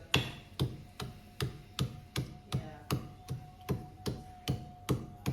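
Knife chopping on a cutting board in a steady, even rhythm of about two and a half strokes a second, with a faint steady tone behind it.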